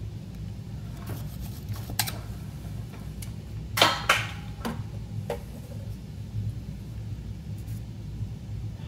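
Soldering iron set down into its metal holder, a pair of sharp clicks about four seconds in, with a few lighter taps and clicks around it, over a steady low hum.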